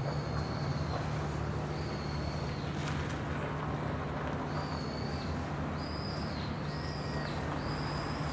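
A bird giving a series of about six short, high, thin whistled notes, each under a second, over a steady low engine-like drone.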